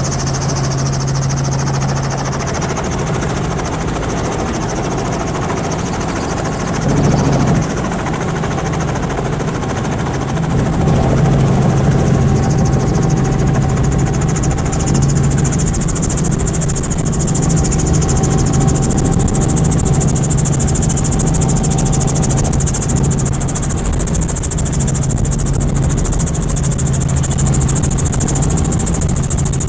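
Robinson R44 Raven I helicopter's piston engine and main rotor heard from inside the cabin, a steady low drone. It gets louder about ten seconds in as the helicopter lifts off and climbs out, with a brief louder burst just before.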